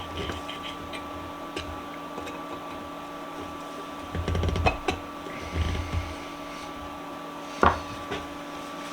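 Metal vise parts and hand tools being handled during reassembly: scattered light clicks, two short bursts of rattling knocks in the middle, and one sharp metal knock near the end, over a steady shop hum.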